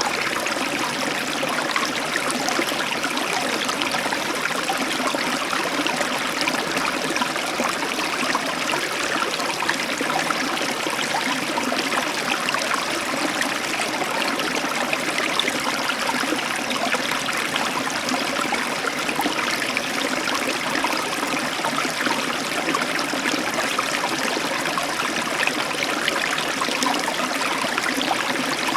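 Nerekhta river water flowing steadily, an even rushing and trickling of a stream over stones.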